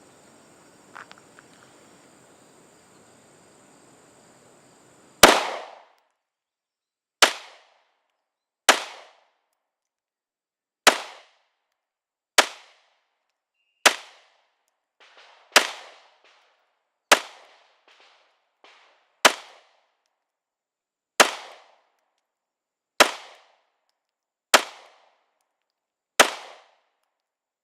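Glock 19 Gen 5 9mm pistol fired slowly in single shots, thirteen in all, about one every one and a half to two seconds, starting about five seconds in. Before the first shot there is only a faint hiss with a few light clicks.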